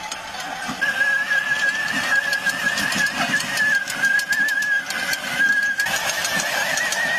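Small electric walk-behind tractor with a 5,000-watt motor working in dry soil: a steady, slightly wavering motor whine that steps up in pitch about a second in, over scattered clicks and rattles from its steel cage wheels breaking clods.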